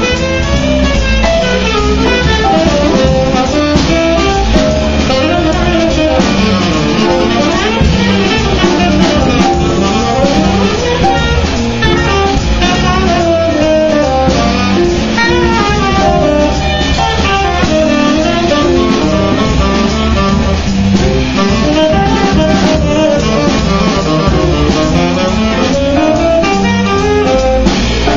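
Live small-group jazz: a tenor saxophone plays a running melodic line over plucked upright double bass and a drum kit with cymbals.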